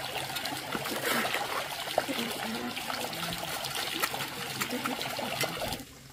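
Steel trowel scraping and working wet, gravelly mortar into the joint between bricks: a wet, gritty scraping with many small clicks, stopping suddenly near the end.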